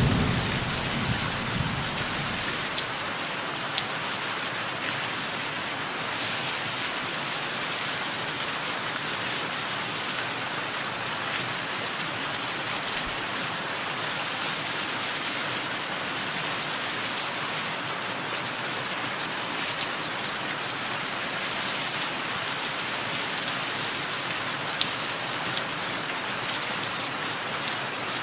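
Steady rain falling, with birds chirping: short high chirps and brief trills scattered every few seconds. The low rumble of thunder dies away in the first two seconds.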